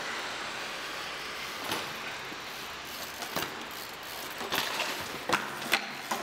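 A BMX bike being ridden on a wet street against a steady hiss of street noise, with several sharp clicks and knocks from the bike. The sharpest knock comes a little after five and a half seconds in.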